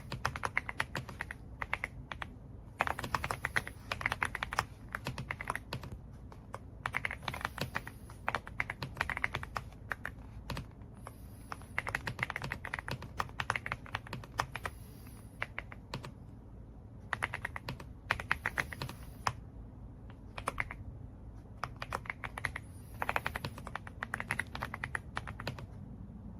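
Typing on an AULA F99 wireless mechanical keyboard: fast runs of keystrokes lasting two or three seconds, broken by short pauses.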